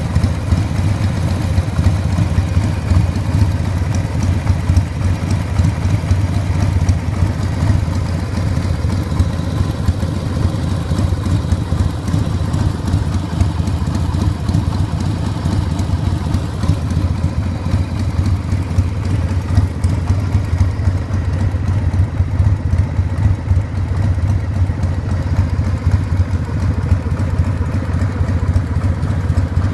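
1992 Harley-Davidson XLH1200 Sportster's air-cooled V-twin engine idling steadily through Harley's genuine optional silencers.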